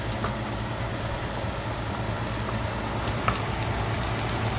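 Minced garlic sizzling and crackling in hot oil in a nonstick frying pan as it is stirred with a wooden spatula, over a low steady hum, with a sharp click about three seconds in.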